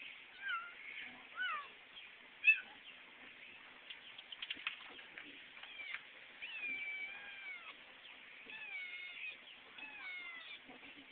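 A kitten meowing over and over: a string of thin, high cries that rise and fall in pitch, some short and some drawn out, the loudest a sharp one about two and a half seconds in. The kitten has just been fed, and its owner takes the crying for a want of contact rather than hunger. A quick run of small clicks comes about halfway through.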